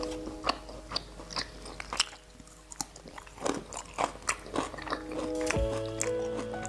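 Close-miked eating: chewing and biting with many short, crisp crunches. Soft background music with held notes plays under it, and a low note comes in near the end.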